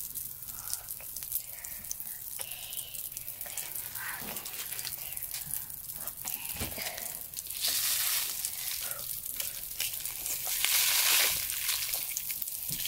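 Pop Rocks popping candy crackling with dense tiny pops on the wet jello, with a candy packet crinkling as the candy is poured, loudest about eight seconds in and again near eleven seconds.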